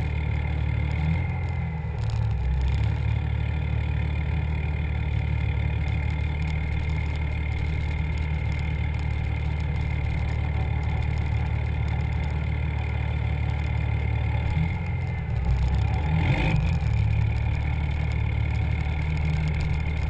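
Cummins turbo-diesel pickup engine running at low speed, heard from the hood: a steady low rumble. It briefly gets louder about fifteen seconds in, then settles back.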